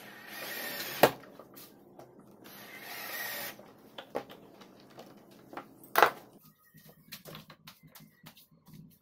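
Cordless drill driving pocket-hole screws into a wooden frame in two short runs, each about a second long and building up. A sharp knock comes right after the first run, lighter clicks and knocks follow, and another loud knock comes about six seconds in.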